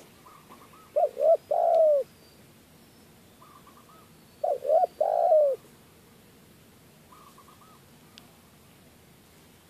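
Spotted dove cooing: two phrases about three seconds apart, each of two short coos followed by a longer drawn-out coo. Fainter, quicker and higher coos come before each phrase and once more near the end.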